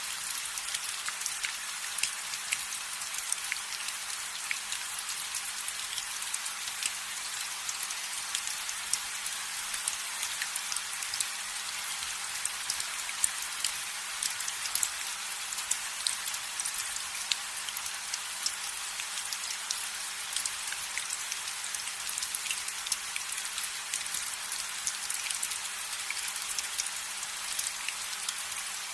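Steady rain: an even hiss with many separate drops ticking sharply through it.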